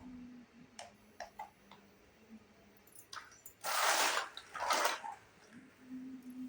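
Small plastic toy kitchen pieces being handled: a few light clicks, then two short rushes of noise about a second apart.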